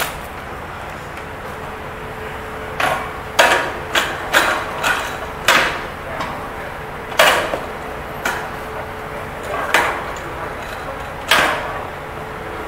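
About a dozen sharp knocks and clunks at uneven intervals, a second or so apart, from a material lift's new caster brake being worked by foot after the brake rod and casters were replaced.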